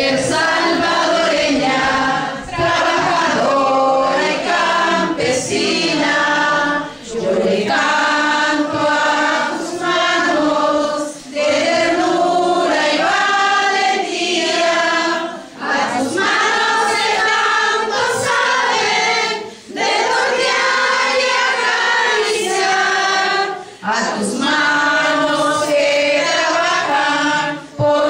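A group of women singing together, in phrases of about four seconds with brief breaks between them.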